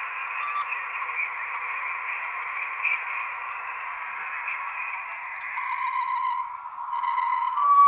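Amateur shortwave transceiver's receive audio: steady band hiss squeezed into a narrow voice-width passband. A carrier whistle comes in about five and a half seconds in, and a steadier, slightly higher whistle takes over near the end, as when tuning across a carrier.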